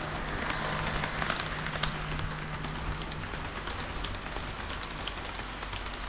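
HO-scale model diesel railcars rolling along the track: a steady rumble of small metal wheels on rail with light scattered clicks, and a low hum that fades out about three seconds in.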